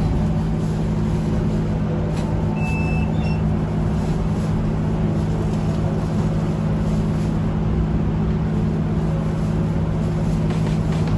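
Steady low hum of a stationary vehicle with street traffic, heard from aboard a tram halted at a stop, with one short high chirp a little over two seconds in.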